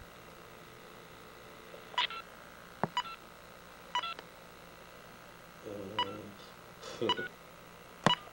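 Telephone keypad touch-tones: six short beeps about a second apart as a phone number is dialed, one beep per key press.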